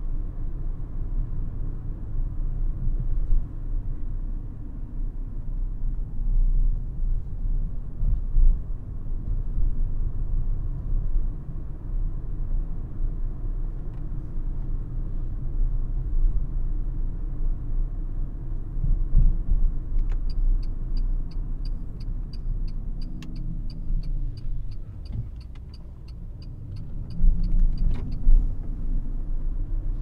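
Renault ZOE R110 electric car driving in town, heard from inside the cabin: a steady low rumble of tyres and road, with no engine note. About two-thirds of the way in, the turn indicator ticks steadily for about eight seconds while the rumble dips, then the rumble rises again near the end.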